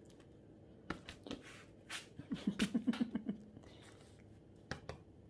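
Mouth sounds from a small poodle licking and smacking its lips over a treat: a few wet clicks, then a quick run of soft pulses about two seconds in.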